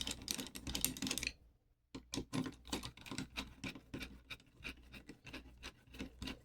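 Small metal parts of a Schlage lock cylinder being handled during reassembly: a busy run of light clicks and scrapes, broken by a brief silent gap about a second and a half in.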